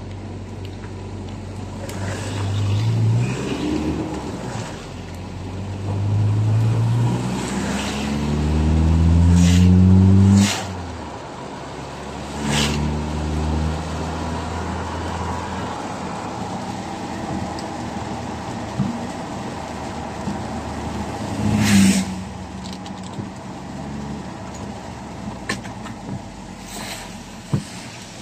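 Vehicle engine accelerating through the gears, its pitch climbing and dropping back at each shift about four times, then cruising steadily with tyre noise on a wet road. A brief loud rush stands out a little past the middle.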